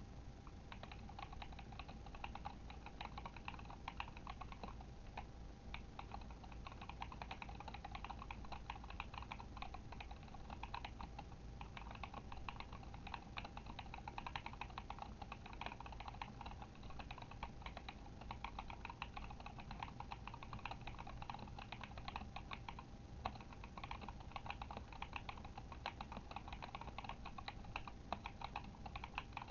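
Fast, continuous typing on a Kemove Shadow mechanical keyboard with Glorious Panda tactile switches: a steady stream of rapid key clacks, broken by a few short pauses.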